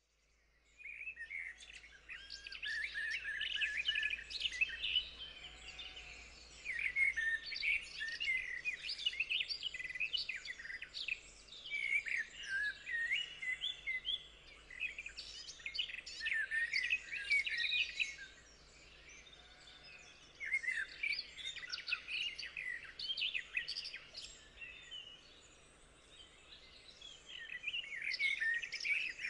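Birdsong: several small birds chirping and warbling in overlapping, fast-changing phrases, fading in about a second in, with short lulls between bursts of song.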